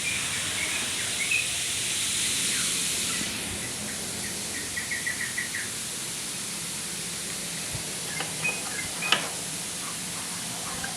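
Outdoor ambience of small birds chirping in short quick series, over a steady high hiss that drops away after about three seconds, with a few sharp clicks near the end.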